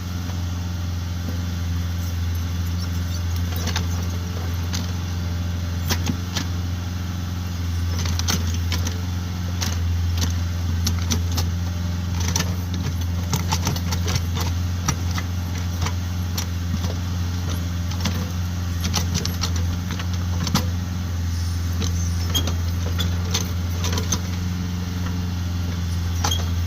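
Kubota tractor's diesel engine running at a steady speed under the backhoe work, with frequent light clicks and rattles over the hum.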